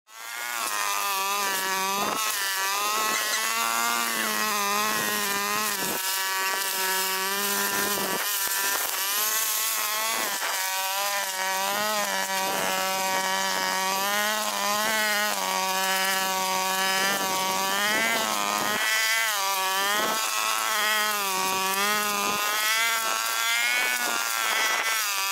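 Backpack brush cutter's small petrol engine running at high speed, its pitch wavering up and down as the wheeled cutting head works through grass.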